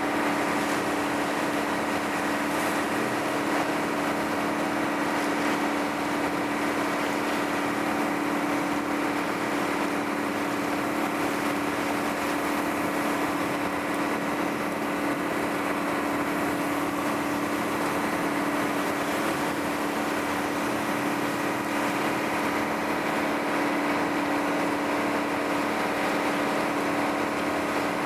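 Motorboat engine running steadily under way: an even drone with a strong hum, over a constant rushing hiss.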